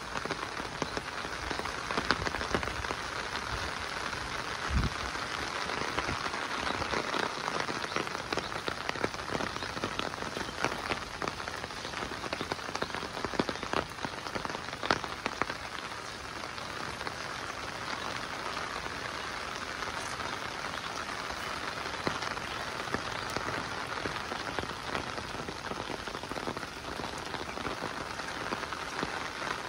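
Steady monsoon rain falling, with many sharp individual drop hits scattered through it, more of them in the first half. A brief dull low thump about five seconds in.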